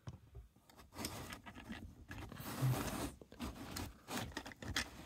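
3D-printed plastic toy parts being handled and pulled apart: an irregular run of small clicks, knocks and scrapes of plastic on plastic.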